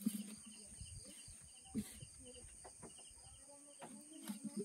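Faint knocks of bamboo cooking tubes being turned and shifted on the wood fire, with chickens clucking in the background.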